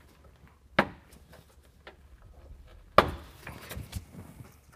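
Plastic insert in the lower front bumper of a Ram 1500 knocking and clattering as its top tabs are pushed down and it is pushed out through the front: a sharp knock about a second in, then a louder knock near three seconds followed by a short rattle of clicks.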